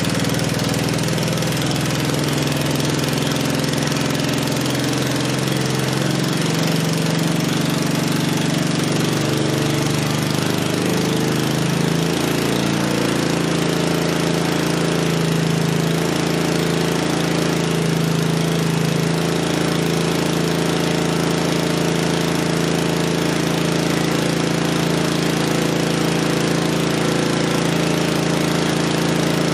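Honda engine running on wood gas from a wood gasifier, driving an alternator; it runs steadily, its note shifting slightly about eleven seconds in.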